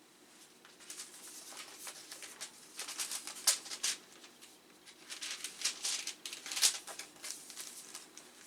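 Plastic disc sleeve and paper packaging being handled: a run of crinkling rustles and light clicks.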